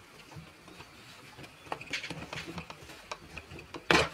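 Hands handling a plastic Kindi Kids toy fridge: faint scattered taps and rubbing, then one sharp plastic click near the end as the doors are pressed to open.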